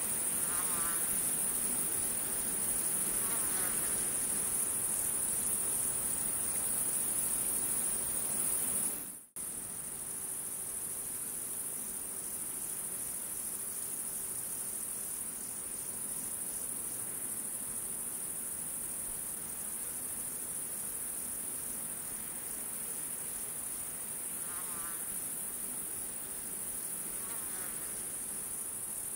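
Steady, high-pitched chorus of chirping insects used as background ambience. It drops out abruptly about nine seconds in and resumes slightly quieter.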